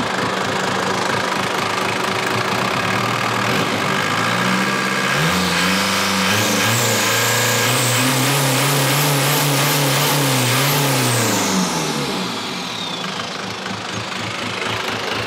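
Tuned Isuzu pickup diesel engine on a mechanical inline injection pump, idling. It is revved up about five seconds in, held high for several seconds, then let fall back to idle about twelve seconds in. It runs through a muffler, with a not very loud, soft note.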